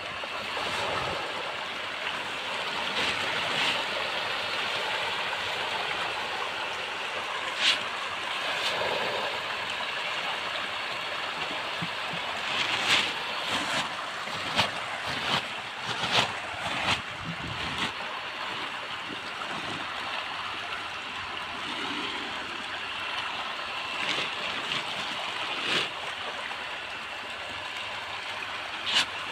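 A crowd of fish churning and splashing at the surface of a pond as they take floating feed: a steady watery rushing with sharper splashes now and then.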